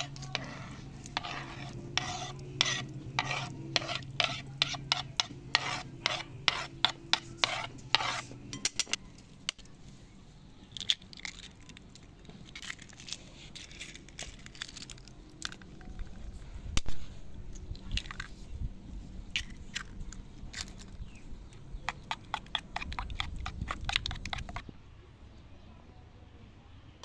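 A metal spoon scraping and tapping against a plastic cutting board and a metal bowl: a long run of sharp clicks about twice a second, then scattered clinks, one louder knock past the middle, and another quick run of taps against the bowl near the end.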